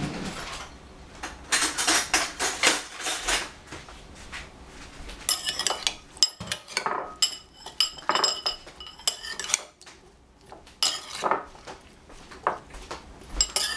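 Two metal spoons tossing sliced cucumbers in a bowl: a run of irregular clinks and scrapes as the spoons knock against each other and the bowl, some ringing briefly.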